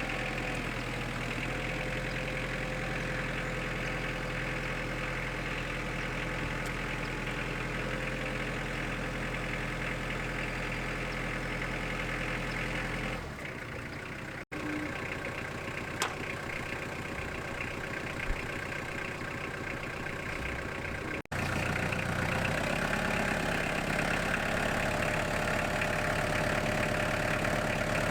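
Engine of a portable band sawmill running steadily. The sound changes abruptly and drops out briefly around the middle, then runs louder from about two-thirds of the way in.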